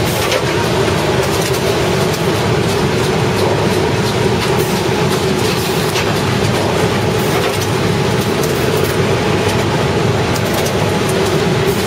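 Flexo printing machine running at production speed: a loud, steady mechanical clatter with a constant hum as printed box sheets feed through to the counter-ejector.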